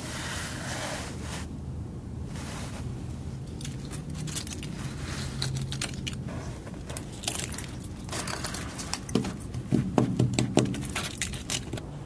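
Fingers picking and scraping at flaking rust scale on a cooling tower's corroded steel cold water pan: scattered crackles and crunches that come thicker in the second half, over a steady low hum.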